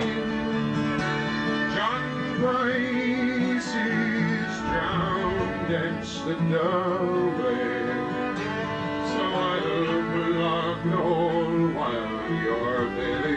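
Live folk music: acoustic guitar and fiddle playing together.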